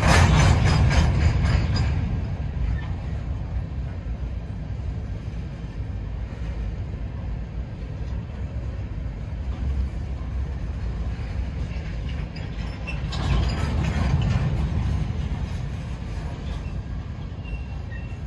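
Covered grain hopper cars of a freight train rolling past: a steady low rumble of steel wheels on rail, with louder passages of rapid wheel clatter at the start and again about thirteen seconds in.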